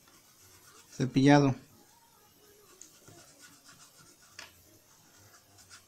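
Faint scratchy rubbing of a paintbrush scrubbed over cloth in a dry-brush stroke, with a few small ticks.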